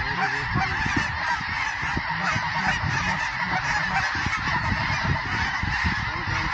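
A large flock of geese calling together, a continuous din of many overlapping honks and yelps, with an irregular low rumble underneath.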